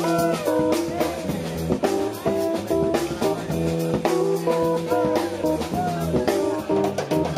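Live funk band playing: electric guitar over bass guitar and a drum kit beat, with bent guitar notes.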